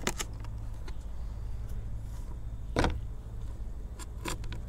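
A knife cutting the feet off a plucked dove on a plastic cutting board: a few sharp clicks and knocks, the loudest a little before three seconds in and two more near the end, over a steady low rumble.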